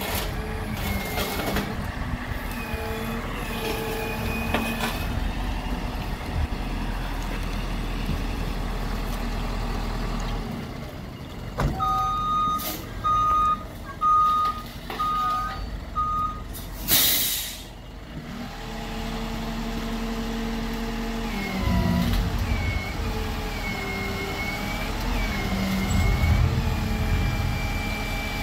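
Isuzu FTR hook-lift truck's diesel engine running under load, with a high whine that rises and falls as the hook arm works. About halfway through come five reversing beeps, then a short, sharp air-brake hiss, after which the engine and whine pick up again.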